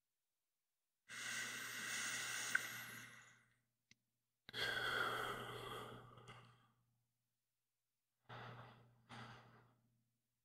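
A man breathing slowly and sighing close to the microphone: two long, deep breaths, then two shorter ones near the end, with dead silence between them.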